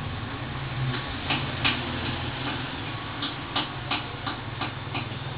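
Computer mouse clicking, about eight sharp clicks at irregular spacing and quicker in the second half, over a steady low hum.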